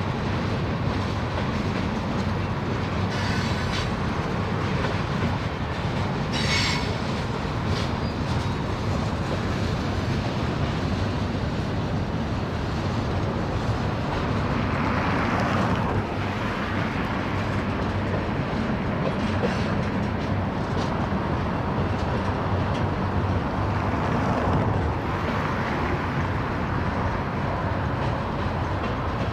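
Freight cars of a mixed freight train rolling past: a steady rumble with wheels clattering over the rail joints. Brief high-pitched wheel squeals come a few seconds in.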